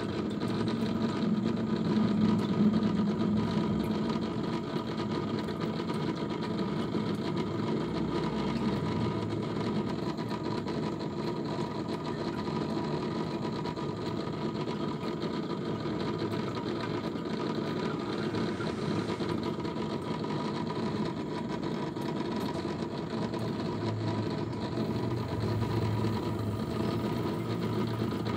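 Aquarium pump running with a continuous mechanical hum and buzz, holding steady throughout.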